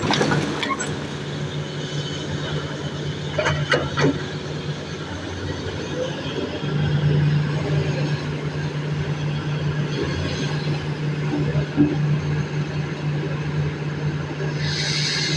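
Excavator's diesel engine running at a steady hum, a little louder from about halfway in, with a few sharp metallic knocks a few seconds in and a brief hiss near the end.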